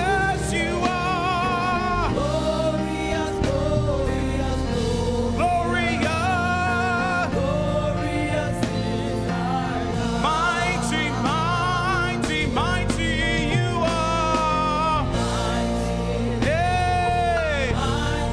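Gospel praise-and-worship music: a singer's wavering, vibrato-laden voice over a band with heavy bass, at a steady level.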